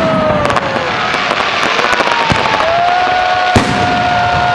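Fireworks salute: continuous crackling with a few sharp bangs, a falling whistle in the first second and a long, steady whistle from about halfway through.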